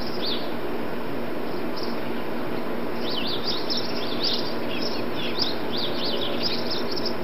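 Small birds chirping in quick, short calls, sparse at first and many together from about three seconds in, over a steady background noise with a faint hum.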